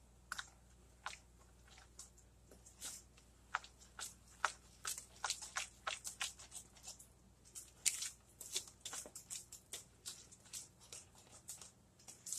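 A metal spoon scraping and knocking against a plastic mixing bowl while stirring a stiff mix of flour, butter and egg for cake batter. The scrapes and clicks come irregularly and more often from about four seconds in.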